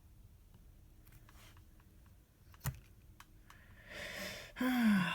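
Light scattered clicks and taps from handling MacBook Air parts, with one sharper click near the middle. Then a breath and a short vocal groan that falls in pitch near the end.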